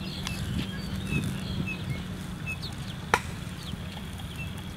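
Scattered short, high bird chirps over a steady low rumble, with one sharp click about three seconds in.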